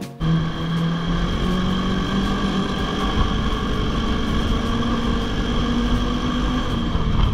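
Ski-Doo 600 four-stroke snowmobile engine running under throttle, its pitch rising steadily as the sled speeds up along the trail.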